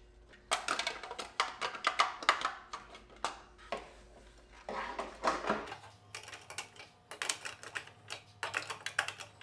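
Hard plastic parts of a Suz S201 table tennis robot's ball hopper and feed mechanism clicking and knocking in quick clusters of rapid clicks as they are handled and pushed into place, in three bunches. A part is not going in easily.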